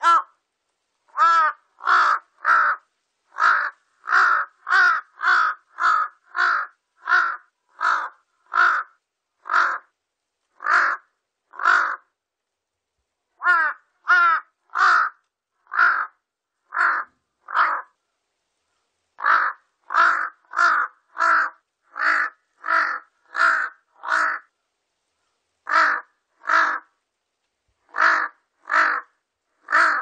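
Large-billed crow cawing: a long series of short, separate caws, about two a second, in runs broken by brief pauses after about twelve and about eighteen seconds.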